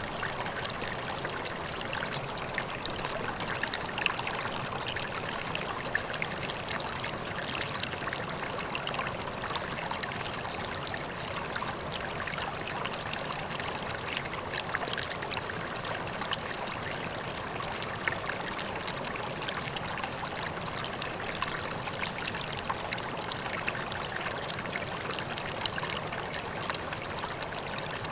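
Water running and splashing steadily into a koi pond, a continuous trickling rush with many small splashes.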